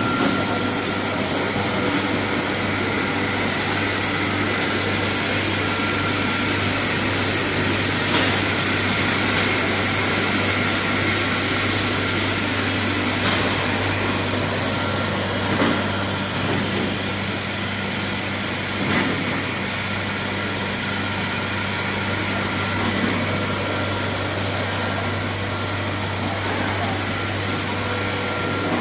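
EVA shoe-sole hot and cold moulding machinery running: a steady low hum under a constant hiss, with a couple of brief faint knocks.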